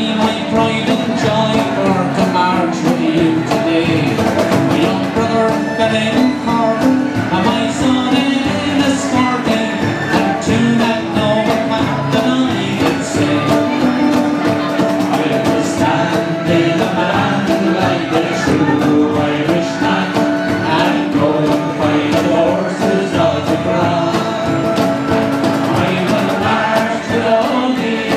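Irish folk session band playing together on strummed acoustic guitars, banjo, fiddle and harmonica, with voices singing at times.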